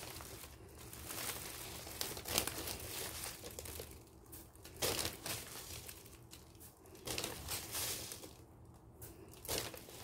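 Korean red chili powder (gochugaru) being spooned into a stainless steel bowl of liquid seasoning. There is a faint, short scooping and tipping sound about every two and a half seconds.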